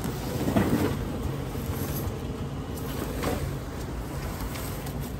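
A large cardboard box scraping and rustling against the edge of a metal dumpster as it is dragged out, loudest about half a second in and again about three seconds in, over a steady low hum.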